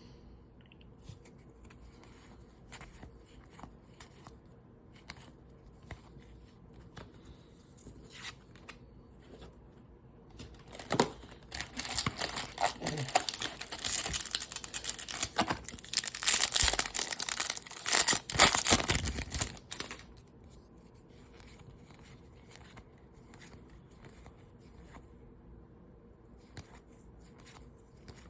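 Faint clicks of trading cards being handled. About eleven seconds in comes roughly nine seconds of loud crinkling and tearing as a baseball card pack's foil wrapper is ripped open. Then quiet card handling resumes.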